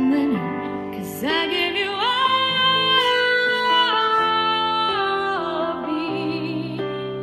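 Music: a singer holding long notes with vibrato, sliding up into a higher phrase about a second in, over piano chords.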